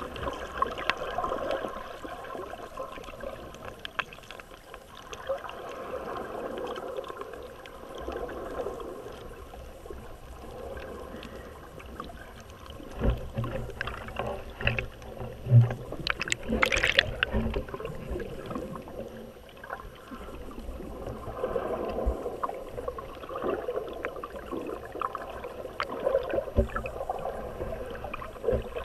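Underwater surge heard through a waterproof camera housing: muffled rushing and gurgling of waves washing over a shallow rocky reef, swelling and ebbing every few seconds. Scattered clicks and knocks run through it, with a few louder ones midway.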